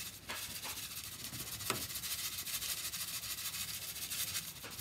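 Sesame seeds being shaken out of a small glass dish into a bowl: a steady fine rustling hiss of seeds sliding over the glass, with a few light clicks.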